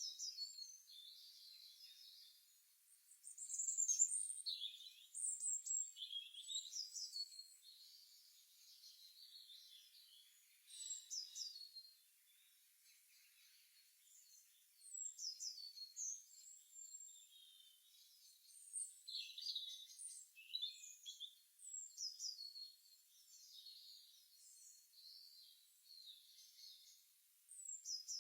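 Songbirds chirping and singing in short, high-pitched phrases of quick sweeping notes, coming in bouts with brief lulls between them.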